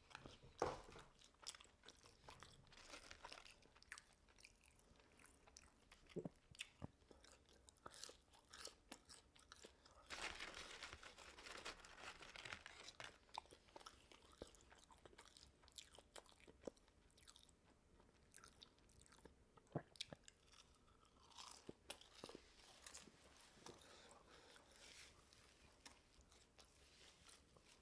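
A person chewing and crunching food close to the microphone, faintly, with scattered mouth clicks and small crunches. The chewing is densest and loudest from about ten to thirteen seconds in.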